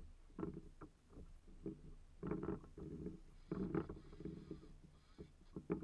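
Choppy sea water slapping against a plastic kayak hull in irregular hollow knocks and splashes.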